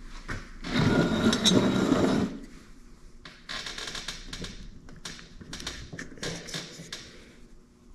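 Hands working a crank seal off the end of a Kawasaki 340cc two-stroke twin's crankshaft: metal parts being handled, with a louder scraping stretch about a second in lasting a second and a half, then a run of short clicks and scrapes.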